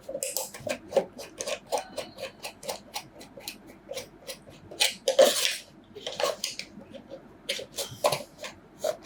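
Hands handling the GoPro Hero 8's packaging while unboxing it: a quick run of clicks and rustles, a few a second, with a louder rustle about five seconds in.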